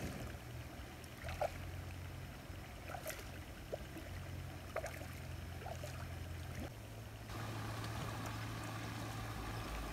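Faint water splashing and trickling as a hooked matrinchã is played at the pond's edge and lifted out by hand. A steadier rush of water sound sets in about seven seconds in. Underneath there is a low rumble and scattered small clicks.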